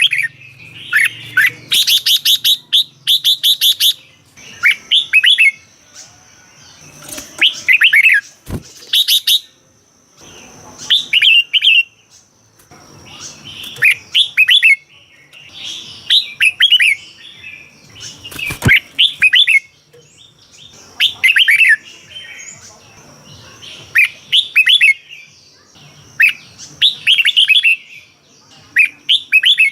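Red-whiskered bulbul singing: short, fluttering warbled phrases repeated every two to three seconds. A faint steady high whine runs under most of it, and there are a couple of sharp knocks.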